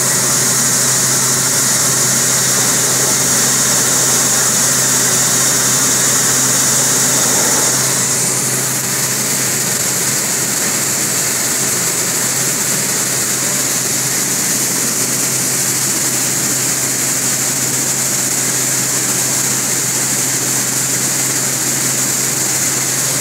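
Five-fan gravity separator running: a steady hum and hiss from its fans and vibrating deck as grain moves across it, slightly quieter from about eight seconds in.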